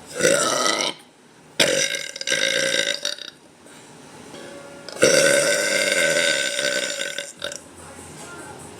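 A woman burping deliberately and loudly, four times: a short burp right away, two more back to back about a second and a half in, then one long drawn-out burp of over two seconds starting about five seconds in.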